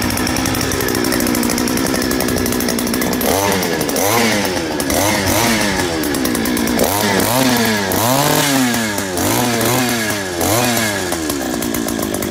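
Two-stroke engine of a cheap imitation Huspanda handheld earth auger running. It holds a steady idle for about three seconds, then is revved up and down over and over, about once a second.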